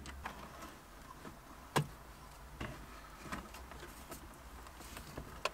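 Scattered light clicks and knocks of an aftermarket car stereo head unit being unscrewed and slid out of its dash opening, with one sharper knock about two seconds in.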